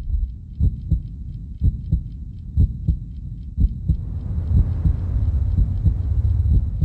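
Heartbeat sound effect: deep thumps in a steady pulse, the strongest about once a second, over a low hum. A faint hiss comes in about four seconds in.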